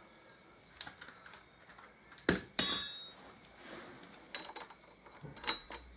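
Steel hand tools clinking as a ratchet and socket are picked up and fitted together: light clicks, then a sharp metal clank and a short ringing clatter about two and a half seconds in, then a few more clicks.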